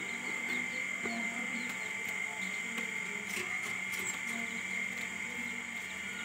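Aseel hen clucking softly and repeatedly while her chicks peep, over a steady high whine in the background.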